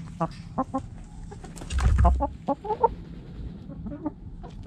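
Backyard hens clucking in short calls, with light clicks of scratching and pecking in dirt. About two seconds in, a loud low rumble as a hen brushes against the camera.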